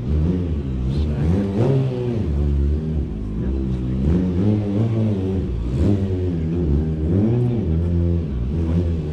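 Stunt motorcycle's engine revving up and down over and over, its pitch repeatedly rising and falling.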